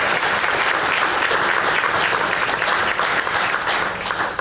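Audience applauding: dense, steady clapping from many hands that begins to thin out near the end.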